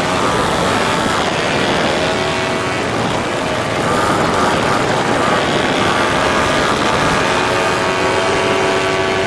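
Moped engines running on a ride, their pitch rising and falling again and again as they rev, over a steady rush of noise.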